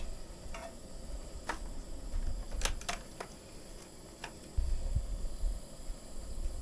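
A handful of light, sharp clicks and clinks of cooking gear being handled (pan, utensils and a batter bottle), spread over the first four seconds, with a low rumble starting about two-thirds of the way through.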